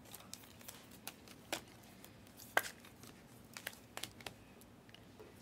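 Trading cards being flipped through by hand: a scatter of faint slides and light snaps as each card is pulled off the stack, the sharpest about halfway through.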